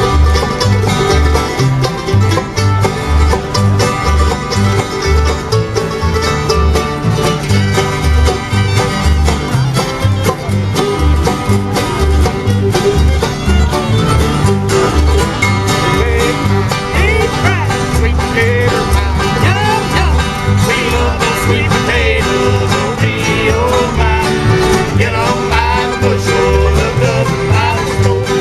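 A bluegrass band is playing an instrumental break with a driving banjo, guitar and a steady bass line of about two notes a second. Fiddle slides come in over the second half.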